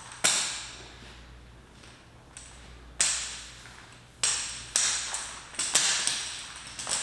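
A Ryobi pressure washer hose being uncoiled by hand, its loops slapping and swishing as they are flung out: about seven sharp strikes, each fading quickly, the later ones coming closer together.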